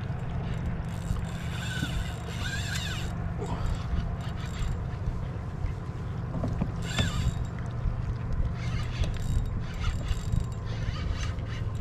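Fishing reel being cranked with a mechanical whirring and clicking while a hooked fish keeps the rod bent, over a steady low rumble.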